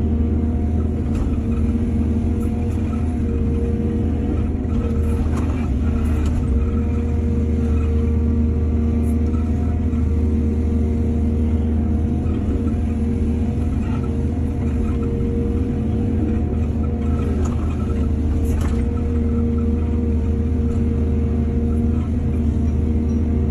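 Excavator's diesel engine running steadily at a constant speed, with a few faint knocks now and then.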